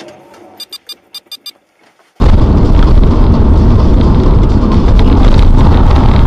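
A quick run of about six short high beeps, then from about two seconds in a loud, steady, distorted rumble: a dashcam's overloaded recording of its car driving along a rough dirt lane.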